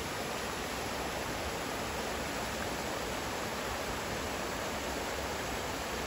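Steady, even rushing noise with no breaks or distinct events.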